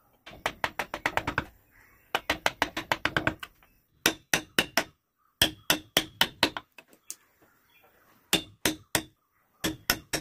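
Rapid light taps of a mallet on a wood carving chisel, cutting into the wood in quick runs of knocks with short pauses between them.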